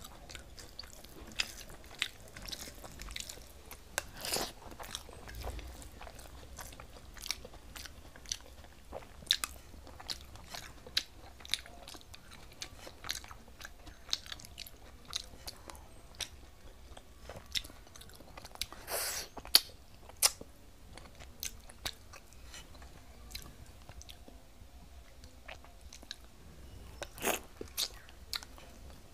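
Close-miked eating sounds: a person chewing a mouthful of rice and fish curry, with a steady run of irregular wet mouth clicks and smacks and a few longer, louder wet bursts.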